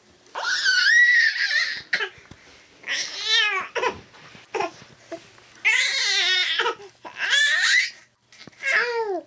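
Young baby vocalizing in five high-pitched bursts of about a second each; the last one falls in pitch.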